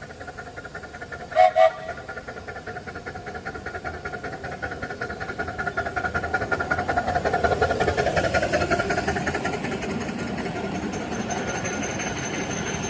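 Miniature 7¼-inch gauge steam locomotive gives two short toots on its whistle, then runs by hauling passenger cars, a rapid rhythmic beat of its running growing louder as it draws near and passes. A thin high whine appears near the end.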